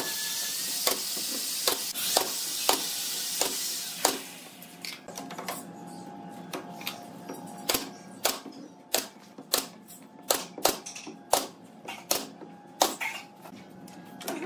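Pneumatic brad nailer firing again and again into pine pallet boards: a string of sharp snapping shots, roughly one or two a second. A steady hiss sits under the first four seconds, then stops.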